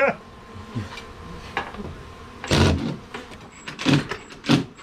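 A cordless power driver run in three short bursts in the second half, backing out screws holding the siding and plywood over the bee hive.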